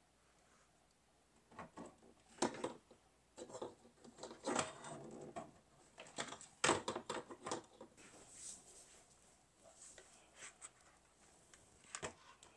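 Decorative pumpkins and other pieces being handled and set down on a wooden mantel shelf: a scattered series of light knocks, taps and rustles, the sharpest about two and a half, four and a half, and seven seconds in, with one more near the end.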